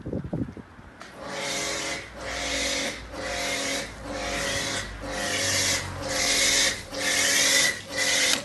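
A hand-pump foam sprayer being pumped up for snow foam: about seven rasping, squeaky pump strokes, roughly one a second, getting louder towards the end, after a short bump at the start.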